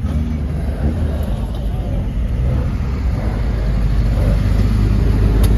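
Alfa Romeo racing car engines running on the starting grid, a dense low rumble that grows louder toward the end.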